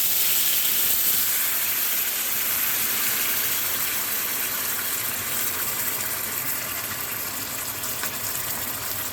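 Hot pan of browned meat and garlic sizzling as canned tomato sauce is poured in, a steady hiss that slowly dies down as the sauce cools the pan.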